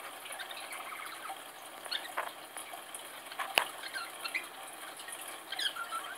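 Faint, scattered chirps and twitters from pet parrots, a cockatiel and a budgerigar, with a call that dips and rises in pitch near the end. A single sharp click sounds about three and a half seconds in.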